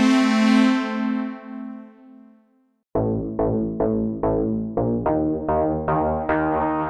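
MOK Miniraze synthesizer plugin playing a demo patch: a sustained, bright chord fades away, and after a brief gap a new patch starts repeating short, plucky keyed notes at about two to three a second.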